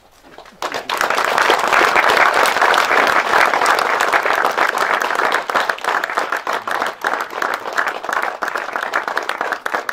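Audience applauding: many people clapping, starting about a second in and thinning slightly toward the end.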